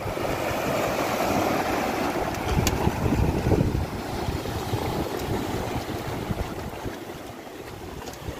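Sea surf breaking and washing through concrete breakwater blocks, with wind on the microphone. The rushing swells louder, with a low rumble, for a second or so about three seconds in.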